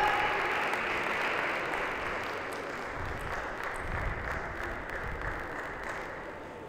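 Audience applauding, the clapping gradually dying away.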